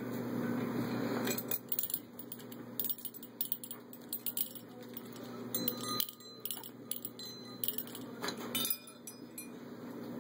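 Brass bells and metal chains of a hanging parrot toy jangling and clinking as an African grey parrot swings on it, with the bells ringing out clearly a few times in the second half.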